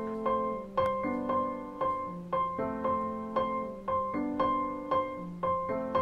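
Soft background piano music: a gentle repeating melody of single notes, each ringing and fading, over held lower chords.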